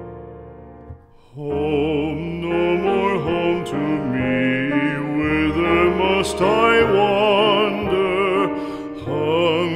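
Music in a classical, operatic style: a piano chord fades out, then about a second and a half in a melody with strong vibrato begins over a sustained accompaniment.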